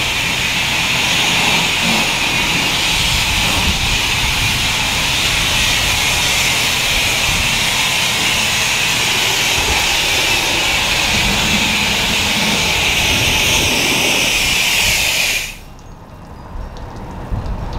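Car-wash machinery running with a steady, loud rushing hiss, which cuts off suddenly about fifteen seconds in.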